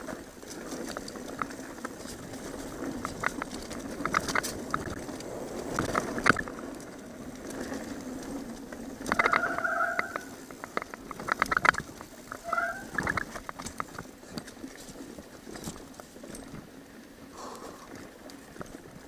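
Mountain bike riding fast down a dirt trail: tyres running over dirt and rocks with the frame and parts clattering over bumps. The brakes squeal briefly twice, about nine seconds in and again near thirteen seconds.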